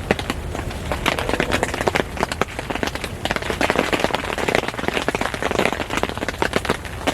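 Small fire of split wet kindling and fatwood crackling and popping densely as it catches.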